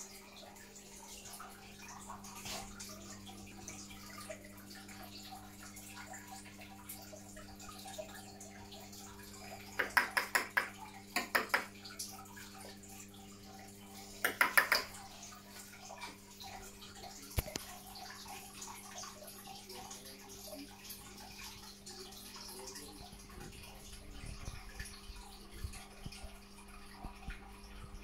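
Aquarium water trickling and splashing over a steady electrical hum, the sound of the tank's filter or pump running. Two short clusters of louder pitched bursts break in around the middle.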